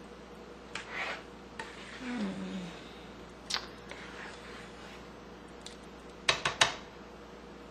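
Wooden spoon stirring a thick, chunky chicken a la king filling in a nonstick pan: soft scrapes and wet squelches with scattered light clicks. Near the end come three sharp knocks in quick succession, the spoon striking the pan.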